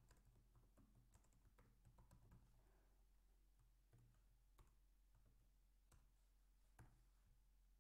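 Faint typing on a computer keyboard: a quick run of keystrokes over the first couple of seconds, then a few single key presses spaced out.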